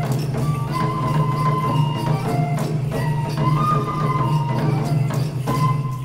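Japanese folk dance music for koma odori (horse dance): a transverse bamboo flute (shinobue) plays a wavering melody over a steady rhythm of taiko drum strokes and other percussion.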